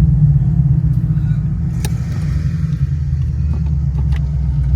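Muscle-car engines idling together with a low, steady rumble as the group gets ready to pull away, with a sharp click about two seconds in.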